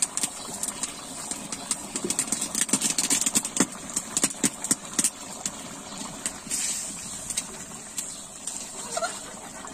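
Open wood fire burning under a wok of simmering curry: a steady rushing noise with many sharp crackles and pops, densest in the first five seconds.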